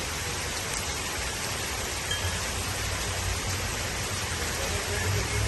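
Heavy rain falling steadily, a dense even hiss with a low rumble underneath. A few faint, brief high tones sound through it.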